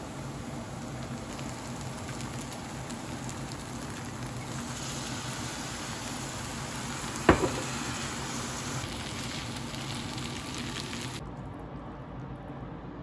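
Instant noodles sizzling as they fry in a pan, with sauce poured over them. A single sharp knock comes a little past halfway, and the sizzle cuts off near the end.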